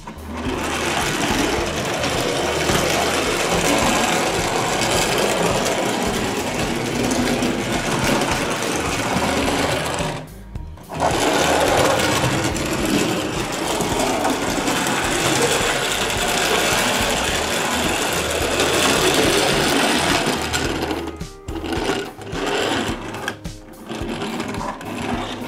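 Small plastic toy vehicles pushed by hand along a play mat, making a continuous mechanical whirr that stops briefly near the middle. In the last few seconds there are scattered plastic clicks as the toy is handled and transformed.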